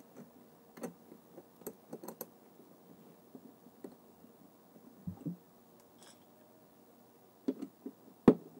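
Scattered light clicks and taps of hands fitting lithium-polymer battery packs and foam padding into the plastic battery bay of a ride-on car. A couple of dull thumps come about five seconds in, and a sharp knock comes near the end.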